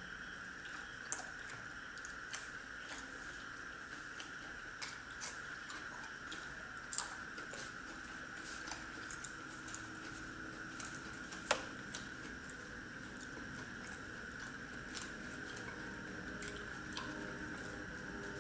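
Eating with the hands at a table: scattered light clicks and taps as paratha is torn and fingers handle plates and steel bowls, the sharpest about eleven and a half seconds in, over a steady background noise.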